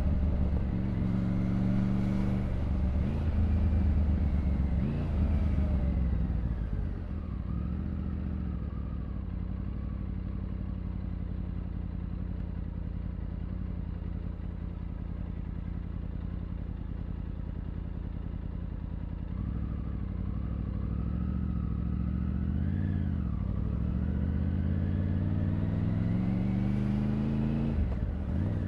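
2022 Triumph Tiger 900's three-cylinder engine and exhaust under city riding: it pulls hard for the first several seconds, settles to a quieter steady low running for about thirteen seconds, then accelerates again with the pitch rising through the gears, with a short dip just before the end for a gear change.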